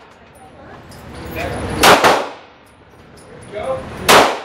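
Two shots from a SIG Sauer 9mm pistol, about two seconds apart, the second near the end, each ringing out in the indoor range.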